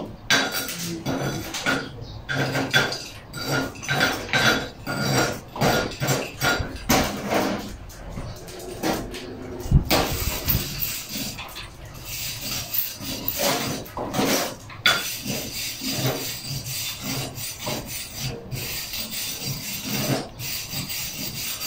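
Chipping hammer striking slag off a freshly laid weld bead on a steel plate in quick knocks, then a wire brush scrubbing the cleaned bead, with a few more hammer knocks near the end.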